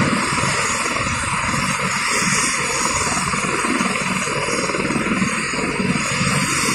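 Apache helicopter running, its rotor and turbine noise steady and loud with a fast, even rotor pulsing underneath.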